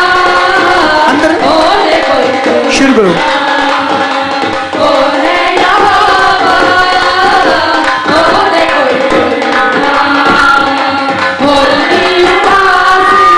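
Live devotional worship song: women singing into microphones over hand-drum percussion and other instruments, amplified through a loud sound system.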